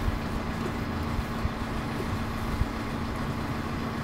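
A boat's inboard engine running steadily under way: a low, even drone with a constant hum.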